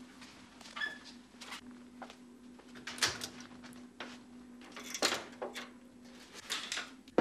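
Irregular knocks and clatters, the loudest about three and five seconds in and a sharp hit at the very end, over a steady low hum.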